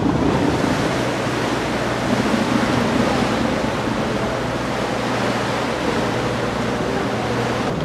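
Steady rush of wind and water noise over a low, even engine hum, as heard on a moving ferry.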